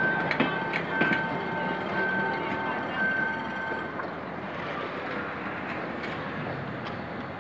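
Passenger coaches rolling past on the rails, with sharp wheel clicks over the rail joints and a steady high squeal. About four seconds in, as the last coach goes by, the squeal stops and the train fades to a quieter rumble drawing away.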